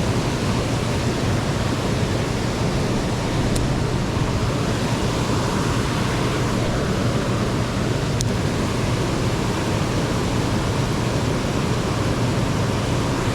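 Steady rushing of high river water, with two faint ticks about 3.5 and 8 seconds in.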